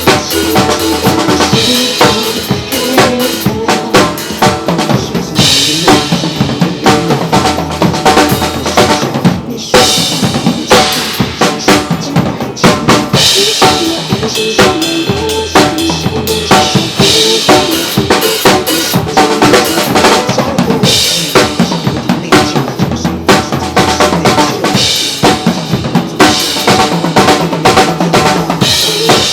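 Drum kit played live along to a recorded Mandopop song: a steady, busy beat of bass drum and snare hits with cymbals, over the song's own instruments and bass line.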